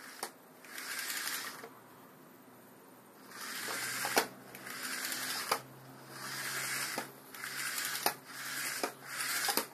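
Lego 9V train motor, its insides replaced by a Lego RC motor, running on test: a small electric motor whirring in rising and falling surges over a steady low hum, with sharp clicks about once a second. It runs smoothly.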